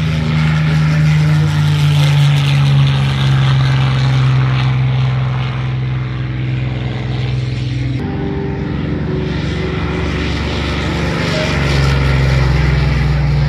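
Propeller aircraft's piston engine running at high power as the plane takes off and climbs away, a steady low drone. About eight seconds in it cuts abruptly to another propeller warbird's engine running on the runway, with a deeper rumble near the end.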